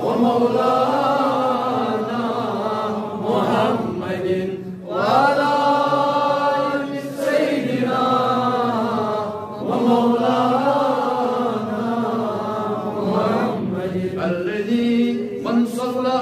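A man chanting a munajaat, a devotional supplication, solo in several long, drawn-out melodic phrases with brief breaks between them.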